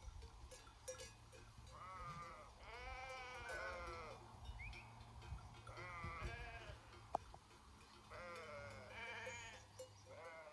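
A flock of sheep bleating, a series of wavering bleats from several animals, some overlapping, with a sharp click about seven seconds in.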